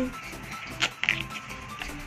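Background music, with a few short squelches and taps as a spoon stirs thick glue slime in a glass bowl, about a second in and again near the end.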